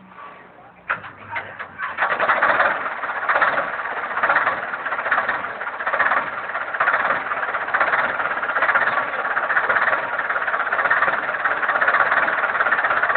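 Old Caterpillar elevating scraper's diesel engine starting: it coughs a few times about a second in, catches about two seconds in, then runs steadily and loudly.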